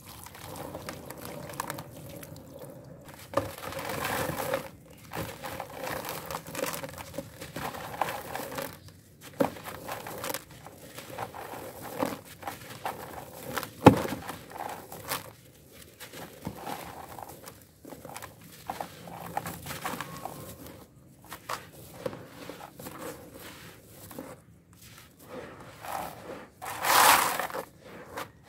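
Wet, grainy red dirt being crumbled and squeezed by hand in a watery basin. Runs of irregular crunching and crackling grit are broken by a sharp knock about halfway through and a louder burst of crackling near the end. At the start, a muddy paste pours onto a gritty block.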